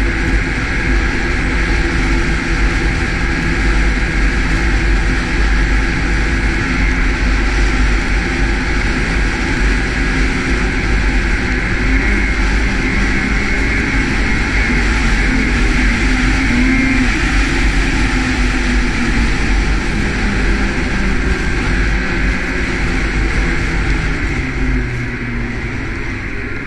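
Ski-Doo snowmobile running steadily at trail speed, heard from the rider's seat. It eases off near the end.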